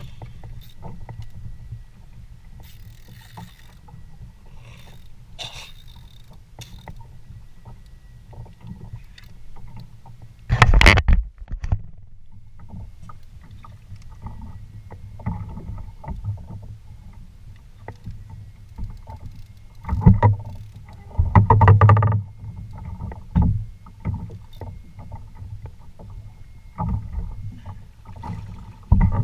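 Water moving around a kayak on the ocean, a steady low rumble, broken by several loud, short bursts of splashing and knocking, a few of them close together about two-thirds of the way through.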